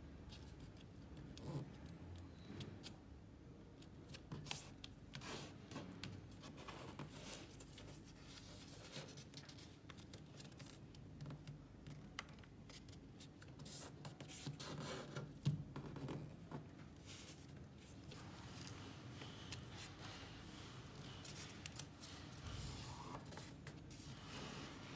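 A sheet of origami paper being folded and creased by hand: faint, scattered crinkles and rustles of the paper, with one sharper crackle a little past halfway.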